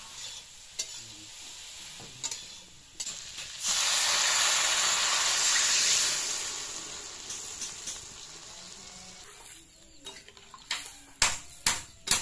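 Vegetables frying in hot oil in an iron kadai, stirred with a metal spatula that scrapes and clicks. A few seconds in, water is poured into the hot pan and the sizzle jumps to a loud hiss that dies away over a couple of seconds. Near the end comes a quick run of sharp metal knocks of the spatula against the pan.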